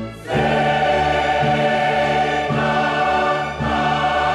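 Advert soundtrack music: a choir singing long held chords over an orchestral backing, the chords changing every second or so.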